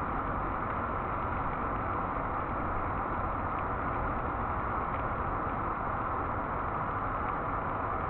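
Steady, even buzzing of many honeybees at a hive entrance, heard as a continuous hiss-like wash.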